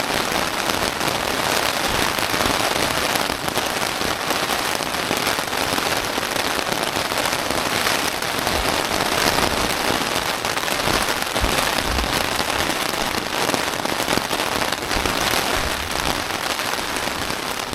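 Heavy rain falling steadily, a dense patter of drops, with a few brief low thuds.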